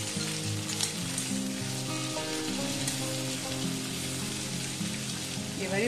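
Snake gourd strips sizzling steadily as they fry in hot mustard oil in a steel kadai.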